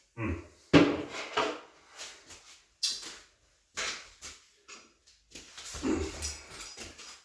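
Bicycle and parts being handled: irregular clunks, knocks and rattles, the loudest about a second in, with a stretch of scraping and rattling near the end.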